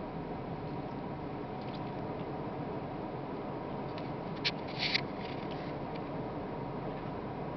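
Steady background hum and hiss inside a stopped car's cabin, with a faint steady tone. A few brief clicks or rustles come about halfway through.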